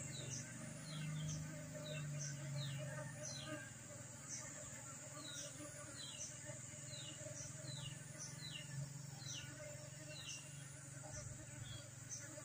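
Faint outdoor ambience with insects buzzing, louder in the first few seconds. Short, high, falling chirps repeat about once or twice a second.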